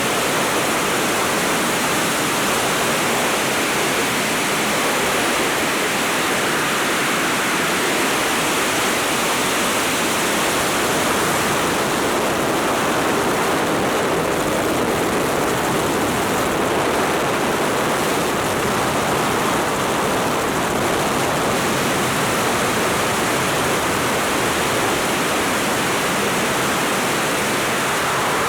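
Robinson R44 helicopter in flight with its doors removed: a loud, steady rush of wind over the microphone mixed with the helicopter's own running noise, unchanging throughout.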